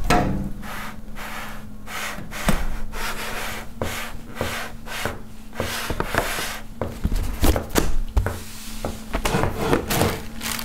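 Trays and drawers being pulled out and rummaged through: irregular sliding, scraping and knocking, over a faint steady hum.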